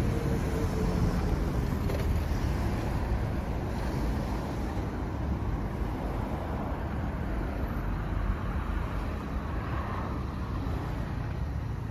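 Honda Rebel 500's 471 cc parallel-twin engine idling steadily through an aftermarket muffler.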